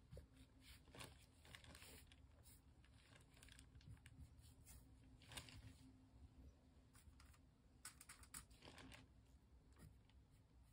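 Near silence: faint room tone with a low steady hum and scattered soft scratches and clicks.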